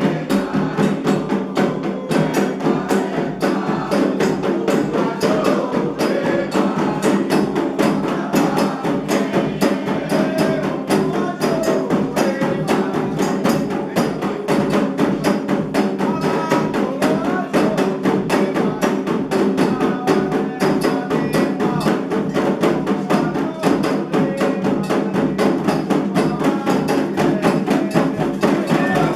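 Candomblé ceremonial drumming: atabaque hand drums and a struck agogô bell keep up a fast, steady rhythm, with group singing over it.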